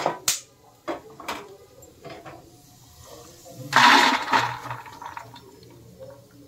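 A few knocks of a wooden spatula on a kadai, then roasted almonds, cashews, walnuts and pumpkin seeds poured from the kadai into a steel bowl in a dense rush lasting about a second, about four seconds in, followed by a few small clicks as they settle.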